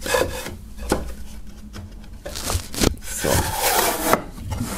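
Wooden sliding lid being pushed shut along the grooves of a wooden box: wood scraping and rubbing on wood, with a few sharp knocks as it catches and a longer scrape near the end.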